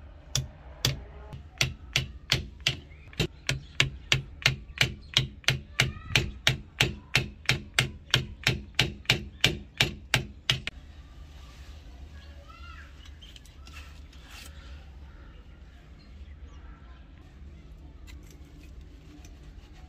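A hammer tapping a pin punch, held in pliers, to drive a pin out of an antique revolver's frame: about thirty sharp taps, roughly three a second, that stop about ten seconds in.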